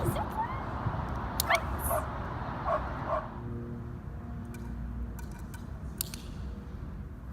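Puppy whining and yipping: short rising cries about four times in the first three seconds, then quieter with a few faint clicks.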